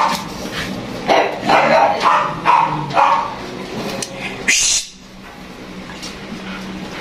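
A dog gives a quick run of short barking yelps, about six in the first three seconds. A brief rustling noise follows at about four and a half seconds, then it goes quieter.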